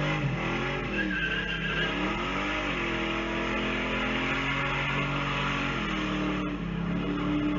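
A vehicle engine revving, its pitch swooping up and down several times over the first few seconds, then holding steady, over a low steady hum.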